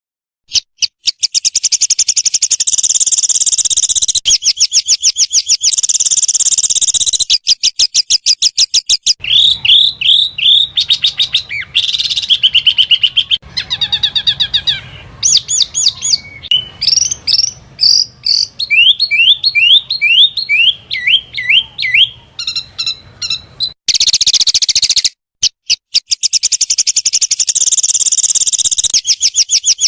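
Small songbirds singing rapid-fire 'tembakan' phrases: dense, high trills of many notes a second, broken by runs of short sliding whistled notes, with a brief cut about 25 seconds in.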